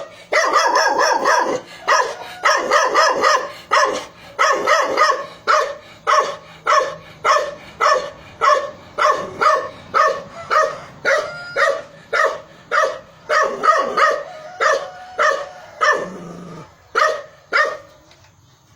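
A dog barking over and over in short, sharp, fairly high-pitched barks. A rapid flurry opens it, then the barks settle into a steady run of about two a second and stop shortly before the end.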